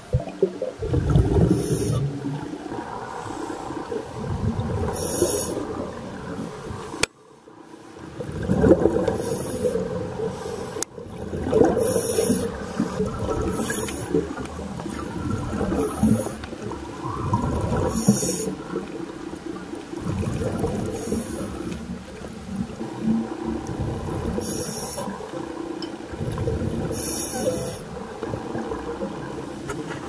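Scuba divers breathing through their regulators underwater: exhaled bubbles rush and gurgle out every few seconds over a steady low rumble of the water.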